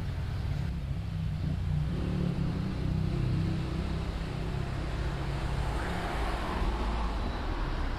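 City road traffic: a steady low engine rumble, with a swell of passing-vehicle hiss about six seconds in.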